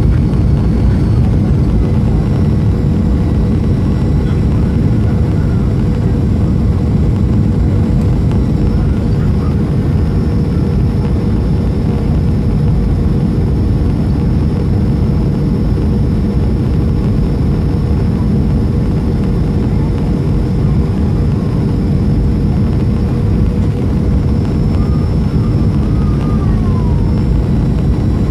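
Steady cabin noise of a Boeing 737-300 airliner descending: a loud, even roar of engines and rushing air with a constant hum running through it.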